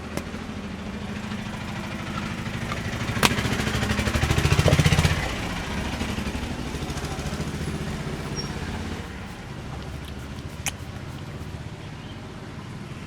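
Motor vehicle engine running close by in street traffic, swelling loudest about four to five seconds in and then easing. Two sharp clicks, one about three seconds in and one near eleven seconds.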